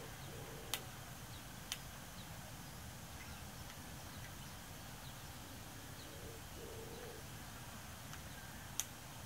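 Faint outdoor ambience with a few low bird calls, a short one about half a second in and two more around six to seven seconds, and faint high chirps. Three sharp clicks stand out, two early and one near the end.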